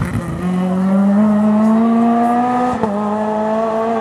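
Renault Clio rally car's engine accelerating hard past on a stage, its pitch climbing steadily, then dropping slightly with a short break near three seconds in, as at an upshift.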